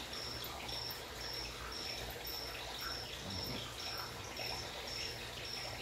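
A cricket chirping steadily, short high chirps about twice a second, over a low steady hum.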